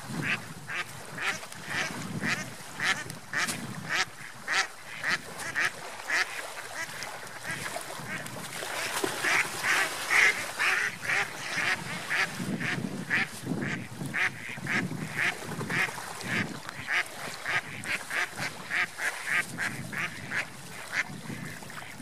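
A flock of mallards quacking: a steady run of short, loud quacks, about two a second, densest and loudest about ten seconds in.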